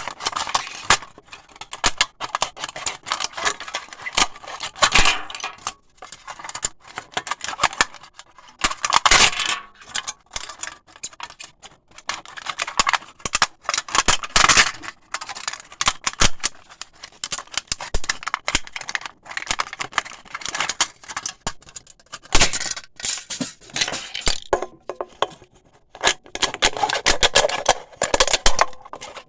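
Razor blade cutting through thin aluminium pop cans: irregular scraping strokes mixed with sharp metallic clicks and crinkles.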